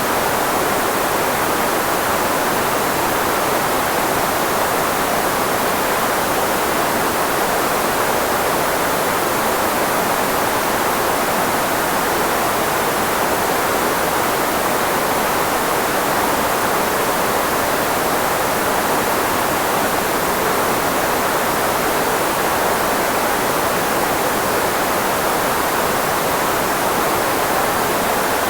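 Steady synthetic filtered white noise, shaped to mask human speech, loudest in the voice range and thinner in the lows and highs. It does not change.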